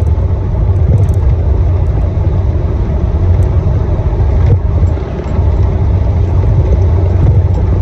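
Steady low rumble of a Jeep driving at speed, heard from inside the cabin: engine, tyre and wind noise together, dipping briefly about five seconds in.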